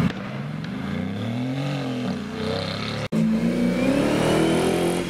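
Mercedes-AMG GT's twin-turbo V8 revving as it pulls away, the pitch rising and then falling. After an abrupt break about three seconds in, a different sports car's engine accelerating, its pitch rising.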